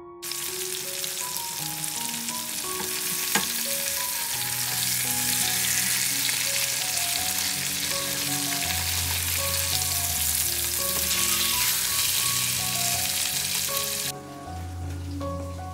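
Flour-dusted chicken breasts sizzling steadily as they fry in hot fat in a frying pan, with one sharp tap about three seconds in; the sizzle drops away abruptly near the end. Soft piano music plays underneath.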